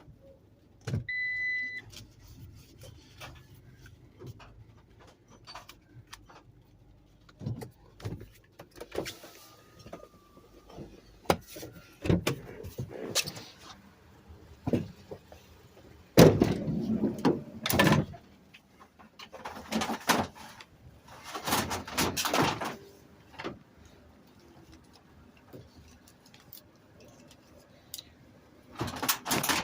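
Handling sounds around a Cadillac STS being checked for a no-start: a short electronic beep about a second in, then scattered clicks, knocks and several brief rushing noises.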